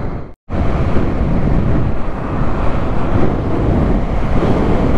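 Wind rushing over the microphone on a moving motorcycle, mixed with engine and road noise. The sound cuts out for a split second just after the start.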